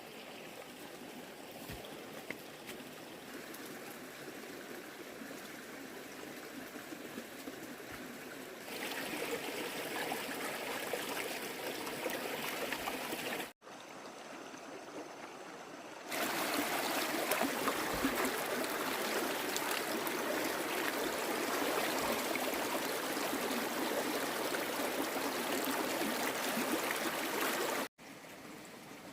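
Steady rushing water noise, an even hiss with no separate drops or splashes. It breaks off suddenly twice, about halfway through and near the end, and is loudest in the second half.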